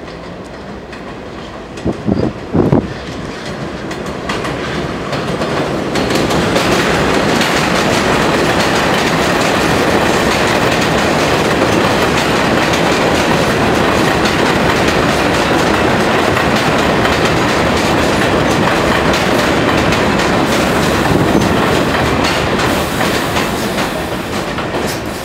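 R46 New York City subway train approaching and then running past as it pulls into an elevated station, its wheels clattering over the rail joints, loud and steady once the cars are alongside. Two brief loud sounds come about two seconds in, before the train noise builds.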